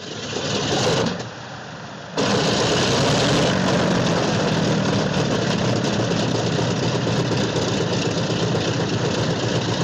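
A loud engine running, the sound dropping for about a second shortly after the start and then coming back strongly and holding steady.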